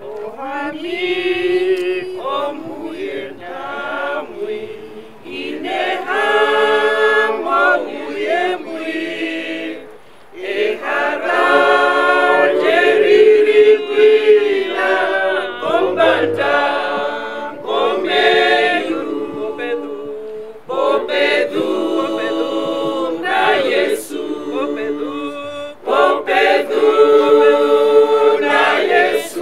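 Small mixed choir of men and women singing a song unaccompanied, in long sustained phrases with brief pauses between them.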